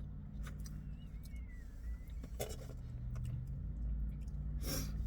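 Quiet eating sounds, a few small mouth clicks and a short rustle near the end, over a steady low hum.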